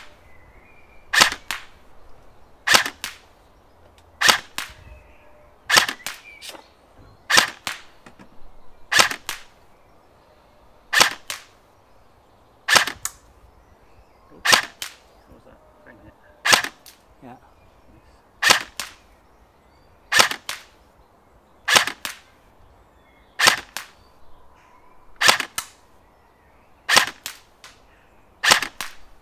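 KWA ERG electric airsoft rifle firing 0.28 g G&G BBs one shot at a time, about seventeen sharp cracks, one every one and a half to two seconds.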